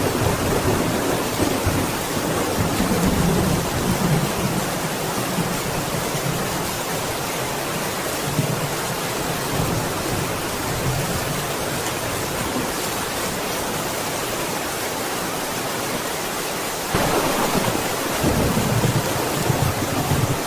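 Steady heavy rain with rolling thunder rumbling in the first few seconds, and again from about three-quarters of the way through, when the sound suddenly gets louder.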